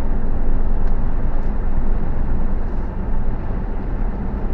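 Steady road and wind noise heard inside the cabin of a 2017 Jeep Wrangler Rubicon at road speed, under a low drone from its 3.6-litre V6. Two faint clicks come about a second in and a second and a half in.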